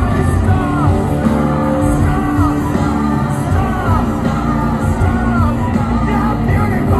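A rock band playing live in an arena, with a voice singing in long sliding lines over the band.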